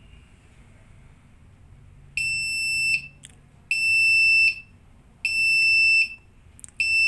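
Electronic buzzer of an LED digital stopwatch sounding its timer beep: three short beeps about a second and a half apart, then a fourth, longer beep near the end, all on one high pitch.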